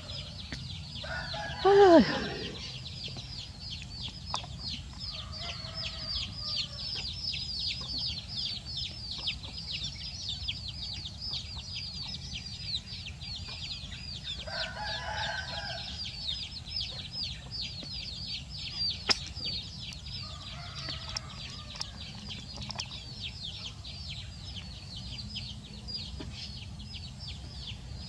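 Chickens in a yard: a continuous chorus of rapid, high chirps with clucking, and one loud falling call about two seconds in.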